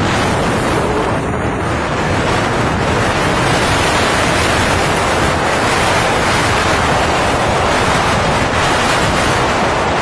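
Steady, loud wind rush buffeting the microphone of a moving motorcycle.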